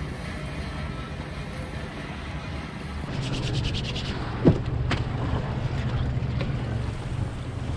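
Wind buffeting the microphone as a steady low rumble, joined about three seconds in by rustling and handling of gear. A single sharp smack about four and a half seconds in is the loudest sound.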